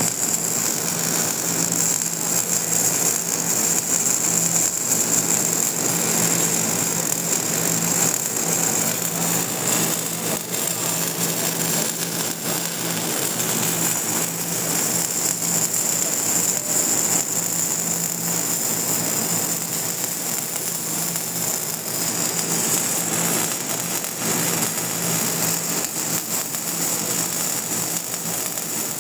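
Electric arc welding: the arc crackles and sizzles without a break, over a steady high whine and a low hum.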